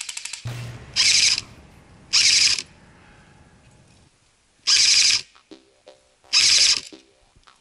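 Airsoft electric rifle firing four short full-auto bursts, each a rapid rattle of gearbox clicks about half a second long, with pauses between them.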